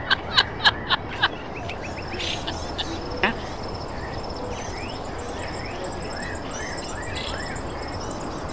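A quick run of about six loud, high calls in the first second and a half, then birds chirping over a steady, high insect buzz.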